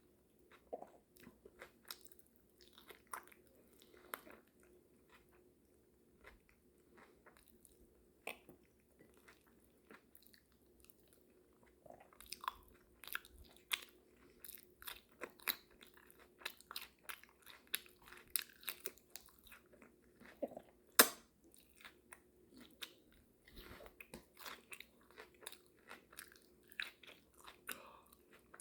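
Open-mouth chewing and biting of food: a run of short mouth clicks and smacks, sparse at first and then steady and busier from about twelve seconds in, with one sharper, louder click a little after the middle.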